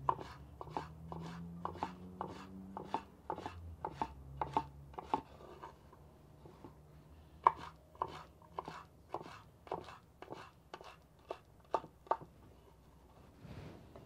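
Kitchen knife dicing nopal cactus paddles into small cubes on a wooden cutting board: quick knocks of the blade on the board, about three a second, with a pause of a couple of seconds about halfway through.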